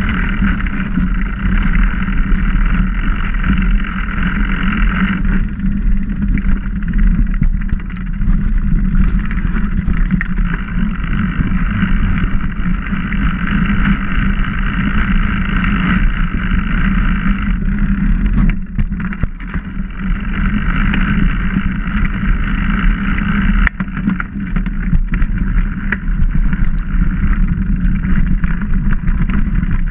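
Mountain bike rolling along a dirt forest trail: a steady loud rumble from the tyres and the moving air, with frequent small knocks and rattles from bumps. A higher buzz over the rumble drops out a few times.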